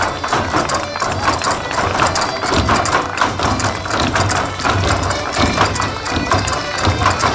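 Live Portuguese Minho folk dance music: an accordion over a steady beat of bass drum and tambourine.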